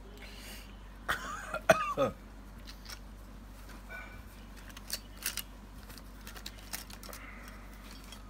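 A man coughing or clearing his throat about a second in, then scattered light clicks and taps of small objects being handled.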